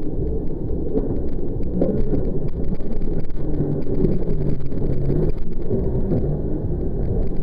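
Jet ski engine running on the water, heard as a loud low rumble with its engine note wavering up and down.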